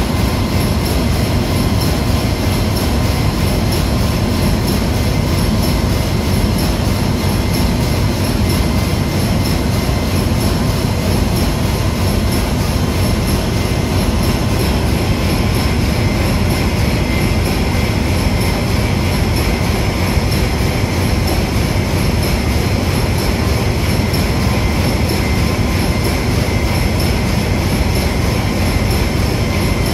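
Loud, steady engine-room machinery noise: continuous running of heavy marine machinery, with a few faint steady high tones over it, unchanging throughout.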